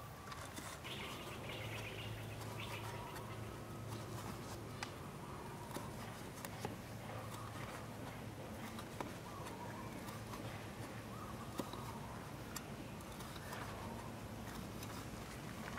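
Cleaver blade knocking on a wooden chopping board as red chillies are chopped, in sparse, irregular taps. Faint bird calls and a steady low hum sit behind.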